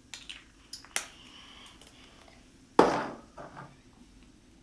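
Hands handling a lip balm and the cardboard calendar box: a few light clicks and taps in the first second, then one louder knock about three seconds in.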